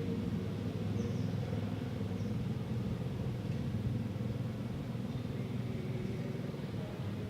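Steady low rumble of distant city traffic, with a couple of faint high chirps about one and two seconds in.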